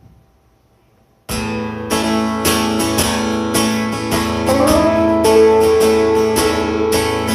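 Live rockabilly band starting the instrumental intro of a song: after about a second of quiet, strummed guitar, bass and drums come in together on a steady beat. A lead melody with sliding, held notes plays over them.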